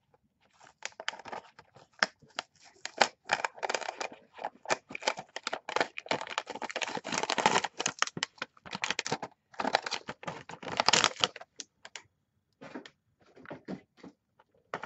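Clear plastic toy packaging crinkling and crackling as it is handled and pried open: a dense run of irregular crackles and clicks that thins out to scattered ones after about eleven seconds.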